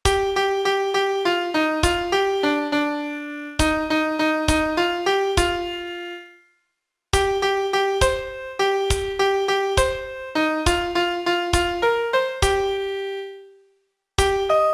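Solo piano playing a song melody one note at a time with no accompaniment, in a lilting 6/8 rhythm. Two phrases, each trailing off into a brief silence, one about six and a half seconds in and the other near the end.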